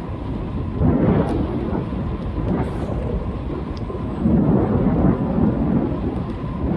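Wind buffeting the camera microphone on a moving bicycle: a continuous low rumble that swells about a second in and again around four seconds in.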